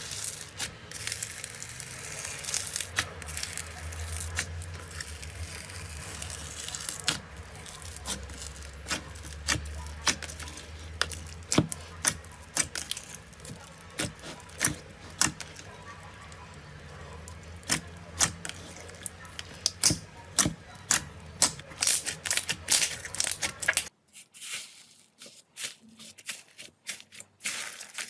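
Slime being squeezed and pressed by hand, giving off many small irregular pops and crackles. A low background hum drops out abruptly near the end while the crackling goes on.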